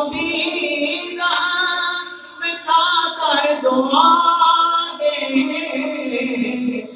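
A man singing an Urdu naat unaccompanied into a microphone, in long held notes that waver and slide, with short breaks between phrases.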